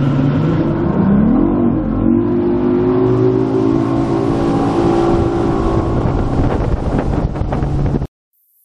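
Mercury outboard motor on a bass boat running under load during its break-in, with the trim tucked under and the jack plate all the way down. It climbs in pitch about a second in, holds a steady speed, then cuts off suddenly near the end.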